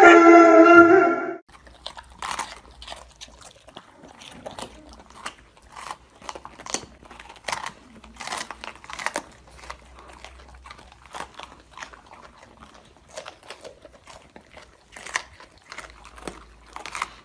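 A loud husky howl into a microphone cuts off about a second and a half in. Then two golden retriever puppies chew and gnaw on green rubber chew toys, with quiet, irregular crunches and clicks of biting.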